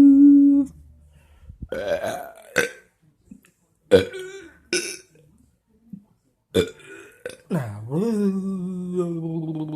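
A person making silly vocal noises: a held hum that cuts off, then several short, rough burp-like croaks, then from about three-quarters of the way in a long, low drawn-out voiced sound that slowly falls in pitch.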